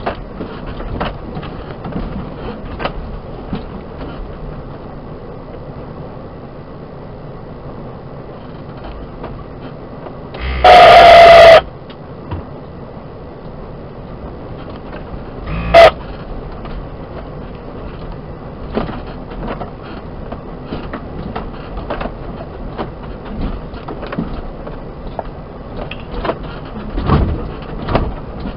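Suzuki Jimny crawling over a rocky track, heard from inside the cab: a steady engine and road drone with frequent knocks and rattles as the wheels go over stones. About ten seconds in comes a very loud distorted burst lasting about a second, and a sharp bang a few seconds later.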